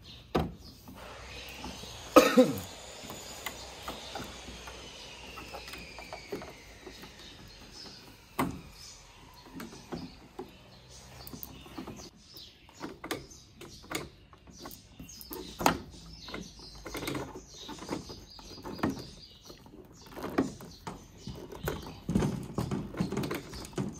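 Plastic hydroponic pipes and tube fittings being handled and pushed into place: irregular clicks and knocks, with one loud knock about two seconds in.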